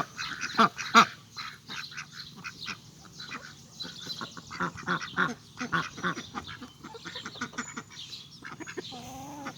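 Several ducks quacking and chattering, many short calls in quick succession, with a longer wavering call near the end.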